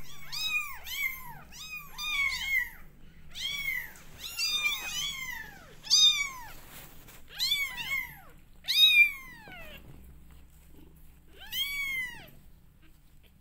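Several 20-day-old kittens mewing: high-pitched calls that rise and fall, coming thick and fast and sometimes overlapping for the first six seconds or so, then thinning to a few single calls.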